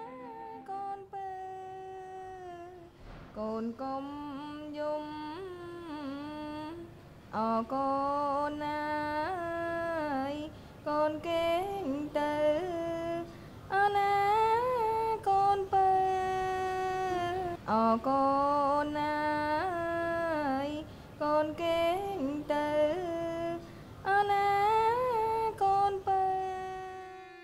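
A woman's voice singing a slow solo melody, with no instruments heard, in phrases broken by short pauses. The notes slide and bend into one another.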